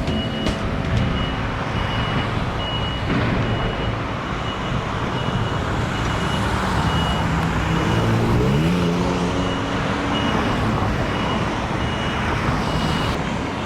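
Reversing alarm on construction equipment beeping about once a second over steady traffic noise, with a vehicle engine revving up about eight seconds in.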